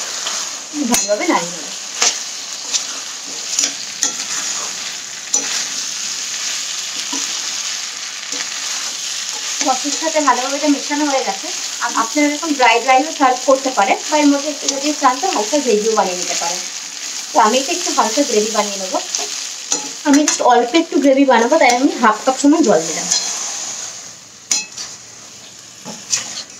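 Chickpeas and sauce sizzling in a hot kadai while a metal spatula stirs and tosses them. Through the middle stretch the spatula strokes scrape against the pan in repeated squeaky bursts. The sizzle grows quieter near the end.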